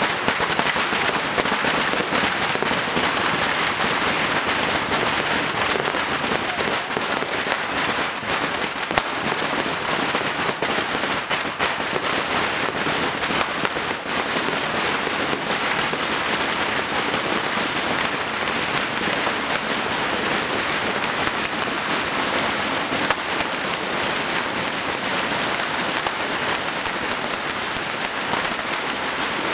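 A dense, unbroken crackle of bottle rockets and firecrackers going off by the hundreds, sounding like heavy rain, with a few louder cracks standing out.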